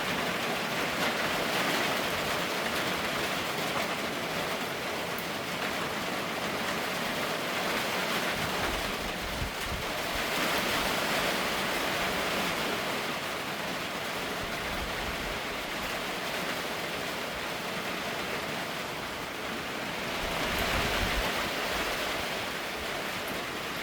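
Heavy rain falling, a dense, steady hiss that swells and eases every several seconds, with low rumbles of wind on the microphone about a third of the way in and near the end.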